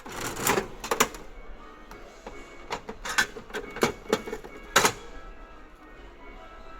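Capsule-toy vending machine being worked: a string of sharp clicks and knocks, about eight spread over roughly five seconds, the loudest near the end, over background music.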